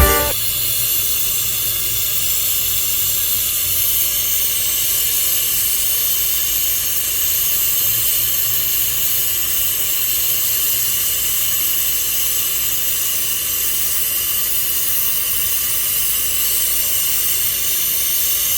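Oxy-fuel torch flame hissing steadily and evenly while brazing a copper air-conditioner refrigerant pipe.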